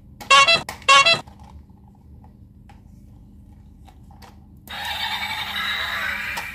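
Battery-operated light-up toy train: two short electronic toots about half a second apart near the start, a few faint handling clicks, then about two-thirds through it is switched on and starts playing its electronic tune and sound effects.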